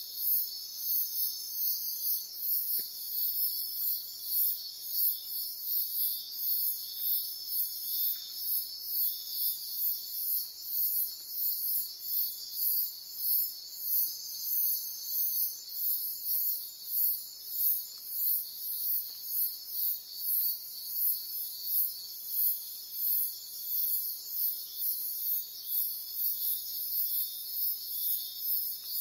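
Insect chorus: a very high trill pulsing evenly about twice a second over a steady, lower shrill drone of more insects.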